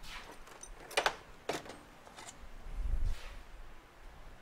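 Tools and metal engine parts handled on a workbench: a few sharp clicks and clanks, about a second apart, then a dull low knock about three seconds in.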